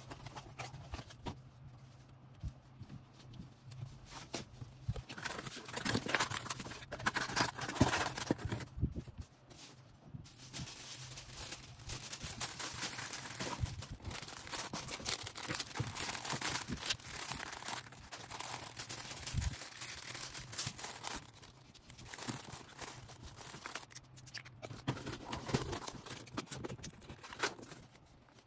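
Plastic packaging being handled while small orders are packed by hand: irregular crinkling and rustling with small taps and clicks, over a faint steady low hum.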